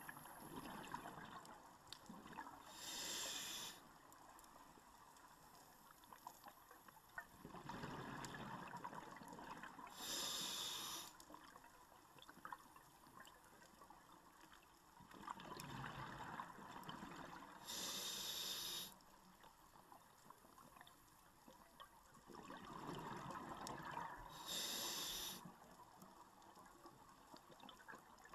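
Scuba diver breathing through a regulator underwater: a sharp hiss of inhalation about every seven seconds, four times, with a low bubbling rush of exhaled air between breaths.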